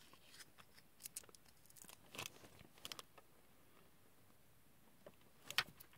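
Faint paper rustles and small ticks, on and off, from a decal being peeled off its paper backing and handled.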